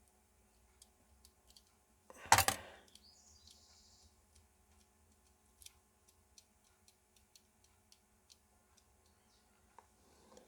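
Small plastic clicks and ticks from a quartz wall-clock movement and its gears being handled and fitted, with one louder clatter a couple of seconds in. A run of quick light clicks follows in the second half.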